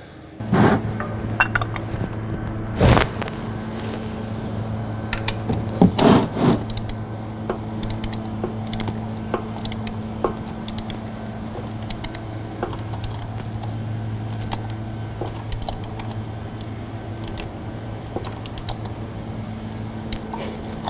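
Metal hand tools clinking, knocking and scraping at intervals while the new oil filter is tightened on, with the loudest knocks about three and six seconds in. A steady low hum runs underneath and stops near the end.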